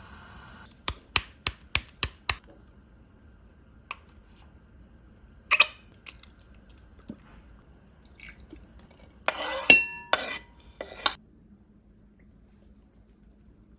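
Kitchen utensils and dishes clattering: a quick run of six sharp clicks, about four a second, then a single knock, and later a louder clatter with a brief ringing clink.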